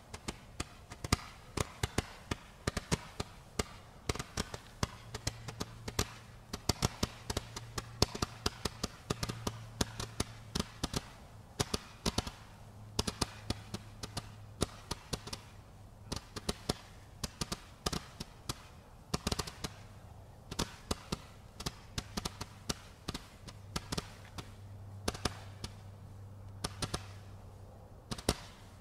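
Brocade Crown Blue Tip, a 175-shot single-tube firework, firing brocade shots in quick succession: sharp pops several a second, unevenly spaced, over a steady hiss.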